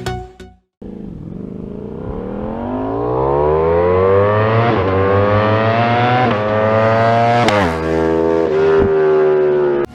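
A motorcycle accelerating hard up the road, its engine note rising through the gears with three sharp drops at the gear changes. It passes close about three quarters of the way through, the pitch falling, then holds a steady lower note as it rides away, until the sound cuts off suddenly near the end.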